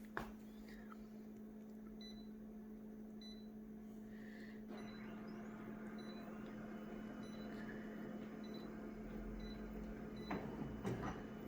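Photocopier humming steadily while a series of short, high beeps sounds, like control-panel key beeps, with a couple of sharp clicks near the end.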